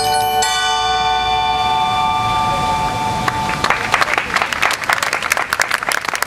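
The music's final chord rings out as steady held tones, then an audience breaks into applause about three and a half seconds in.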